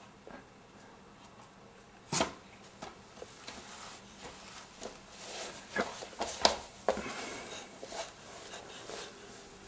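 Scattered knocks and clatter as a baby handles plastic DVD cases and crawls on a play mat: one sharp knock about two seconds in, then a quicker run of clicks and knocks between about five and seven seconds.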